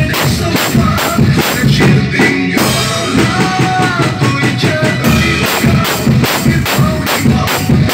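Drum kit played in a steady beat with Zildjian cymbals, kick and snare, along with a recorded song that has a melody line over it.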